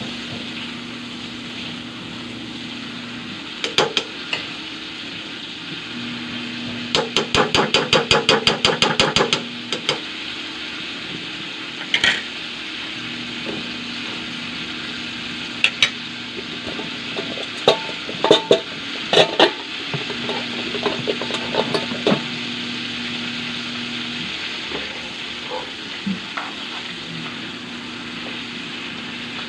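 Butter melting and sizzling in a stainless-steel wok as a metal ladle stirs it, the ladle scraping and clinking against the wok. About seven seconds in comes a quick run of clinks, around six a second for a couple of seconds, as she stirs fast.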